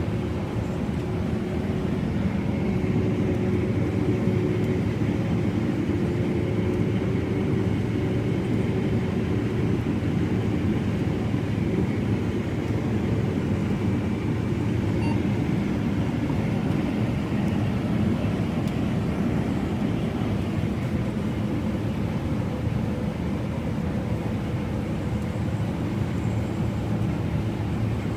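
Combine harvester running: a steady low drone of its engine and threshing machinery.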